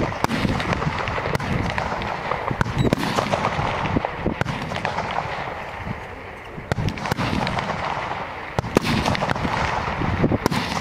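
Rifle shots on a fullbore target range: sharp cracks from several rifles at irregular intervals, a few much louder than the rest, over a steady rushing background noise.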